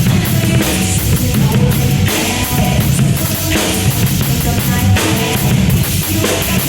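A drum kit played along with a loud rock track, the bass drum prominent.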